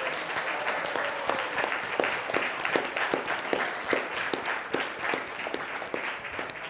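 Audience applauding, a dense run of hand claps that starts to thin out near the end.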